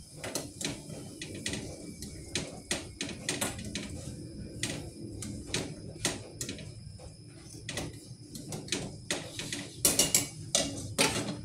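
Dishes and pots clinking and knocking as they are handled at a dish rack, in irregular clatters several times a second, loudest near the end.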